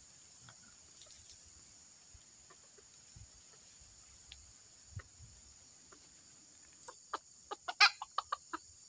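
Red junglefowl rooster clucking: a quick run of short, sharp clucks starting about seven seconds in, the loudest soon after, following a quiet stretch.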